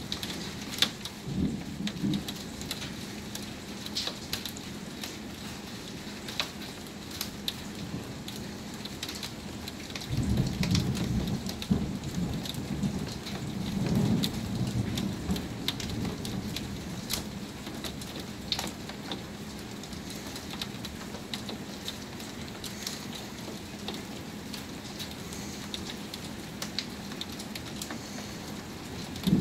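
Heavy thunderstorm rain falling steadily, with many sharp drop ticks close by. Low thunder rumbles through it, briefly near the start and most strongly from about ten to sixteen seconds in.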